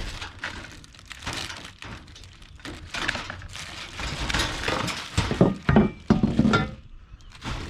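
Steel utility cart parts and their packaging being handled during unboxing: irregular knocks, clunks and rustling, loudest in a cluster of clunks about five to six seconds in.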